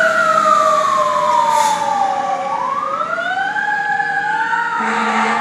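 Fire engine siren wailing, two tones sweeping slowly down and then back up.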